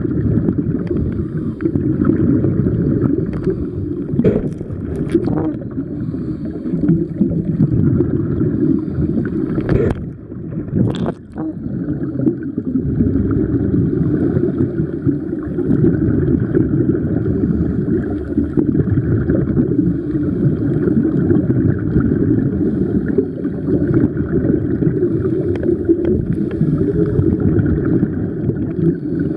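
Steady, muffled underwater rumble picked up by a submerged camera, with a few brief knocks about four to five seconds in and again around ten to eleven seconds in.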